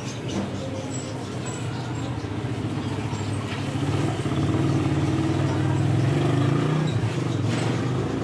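A motor vehicle engine running close by, getting louder about four seconds in and easing off near the end, with faint clicks and rustles of charcoal lumps and plastic bags being handled.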